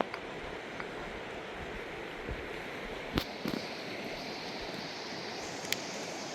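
A mountain river rushing: a steady hiss of flowing water, with a couple of short sharp knocks, about three seconds in and near the end.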